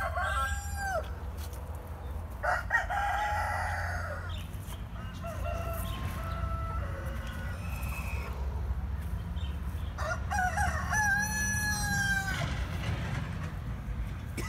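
Roosters crowing: one crow ends about a second in, another comes at about two and a half seconds, and fainter calls follow. The loudest and longest crow comes at about ten seconds. A steady low rumble runs underneath.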